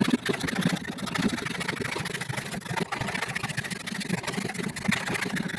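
Handsaw cutting across a pallet wood board, a steady rasping of the teeth through the wood.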